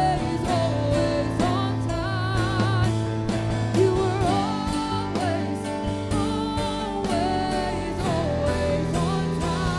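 Gospel worship music: a singing voice over a live band with a bass line and a steady beat.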